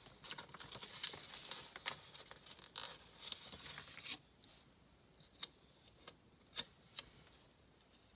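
Faint crinkly rustling of a paper sticker sheet being handled for about four seconds, then about five separate light clicks and taps as stickers are worked onto the planner page.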